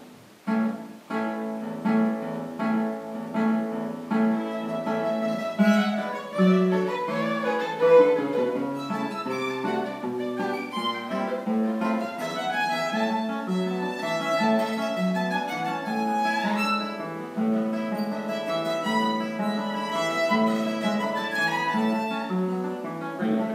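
Violin and two classical guitars playing chamber music together: the guitars pluck a repeating low accompaniment under a bowed violin melody. The music starts just after a brief pause, and there is a quick upward slide in the melody about two-thirds of the way through.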